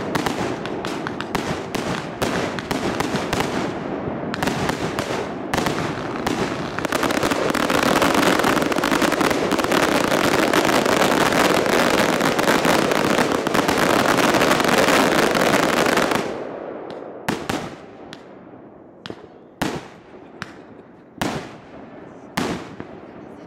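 Fireworks: a dense barrage of bangs and crackling from aerial bursts, which thickens into a continuous crackle in the middle. After about 16 seconds it thins out to a few scattered single bangs, each trailing off with an echo.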